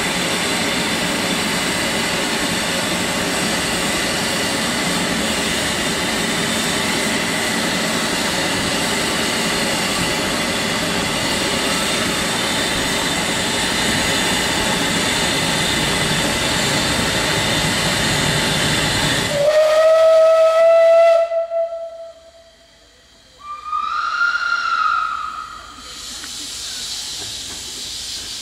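Beyer Peacock 2-4-0 narrow-gauge steam tank locomotive standing with steam escaping in a steady, loud hiss. About twenty seconds in, its steam whistle sounds for about two seconds. After a brief drop in level, a second, higher whistle note sounds for about two seconds, followed by a fainter hiss.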